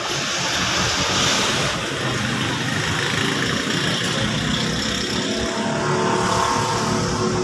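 A car engine running with steady road and mechanical noise, the engine's pitch shifting slightly in the second half.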